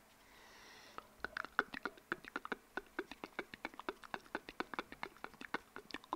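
Wet ASMR mouth sounds: rapid tongue and lip clicks made close to a foam-covered microphone, about eight a second, starting about a second in after a soft breathy sound.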